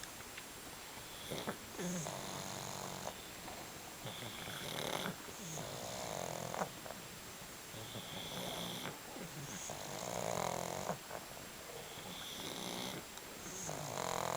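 Sleeping pug snoring, about seven snores each lasting about a second, one every one to two seconds. Snoring like this is typical of the breed's short-muzzled airway.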